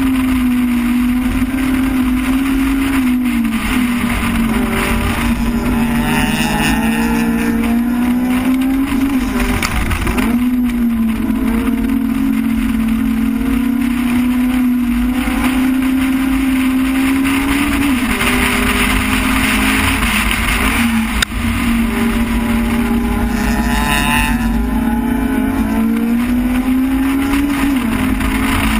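Car engine heard from inside the cabin while lapping a racetrack, held at a steady high pitch that dips and climbs back about four times as the driver lifts or shifts for corners.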